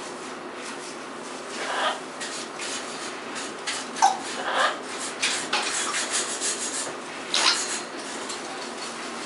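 Bird-cage cleaning: irregular scrubbing and scraping strokes, the sharpest about four seconds in.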